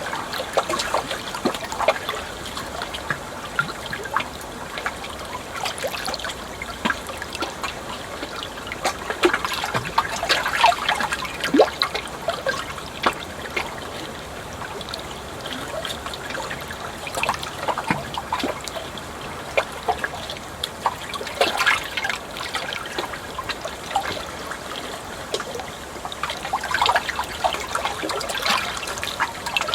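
Water trickling and gurgling steadily, with irregular small splashes and bubbles.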